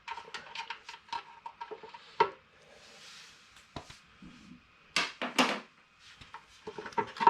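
Metal hand tools and fittings clinking and knocking while an air compressor's regulator manifold is being unbolted. A run of light clicks gives way to two louder clanks about five seconds in.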